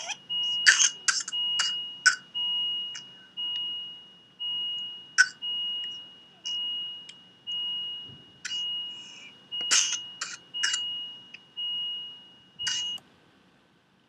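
Electronic beeping: a steady two-tone beep repeating about once a second, with sharp clicks and rustles over it. The beeping stops about a second before the end.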